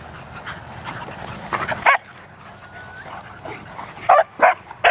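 Dogs barking during rough play: a short flurry of barks just under two seconds in, then three sharp barks in quick succession near the end.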